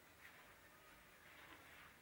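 Near silence: faint background noise with a few soft hissy rustles.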